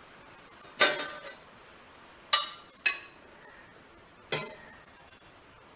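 Kitchen vessels and utensils clinking: four separate knocks, each with a short ring, spaced about half a second to a second and a half apart.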